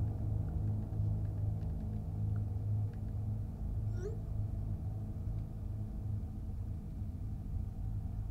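A low, steady droning hum, with a few faint clicks in the first three seconds and one short rising squeak about four seconds in.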